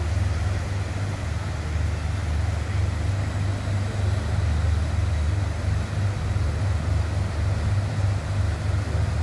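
Steady low rumble of a river passenger ship's engines as it passes close by, over the continuous rush of fast-flowing flood water.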